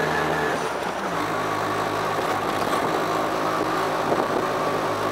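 Auto-rickshaw engine running under way, heard from inside the open cabin. About a second in, the engine note drops a step and then holds steady.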